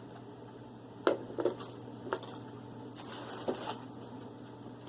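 Toy packaging and small items being handled on a table: a few light clicks and plastic rustles, the sharpest about a second in and again near three and a half seconds, over a steady low hum.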